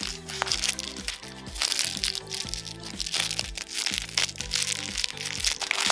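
Background music with a steady beat, over the crackling and crinkling of a plastic blind-bag wrapper being handled and opened by hand.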